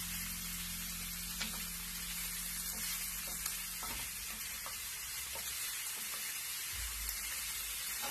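Diced pork belly and red onion sizzling as they fry in a skillet, stirred with a wooden spatula that scrapes and taps the pan now and then.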